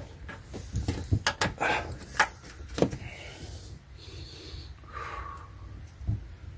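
Sharp plastic clicks and knocks, several in the first three seconds, with some rubbing, as a hand presses a car's plastic inner fender splash shield and its push-in fastener back into place.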